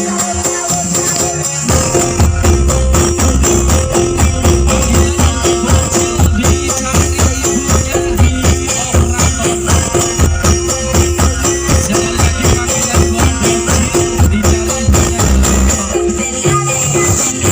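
Loud dance remix music with a heavy pulsing bass beat and a jingling, tambourine-like rhythm, played through a large outdoor sound system. The bass comes in about two seconds in.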